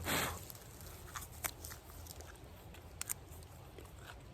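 A person biting and chewing a freshly picked wild onion leaf: a brief burst of noise at the start, then a few scattered crisp crunches.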